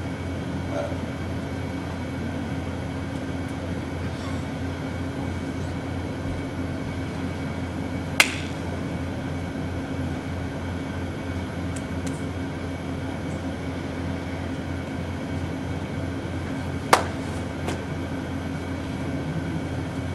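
Steady low room hum, with two sharp taps, one about eight seconds in and another about seventeen seconds in.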